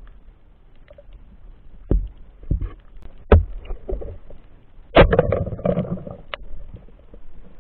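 Underwater knocking and clatter, picked up through the camera's housing: three separate sharp knocks, then a louder, denser burst of knocks and rustling about five seconds in.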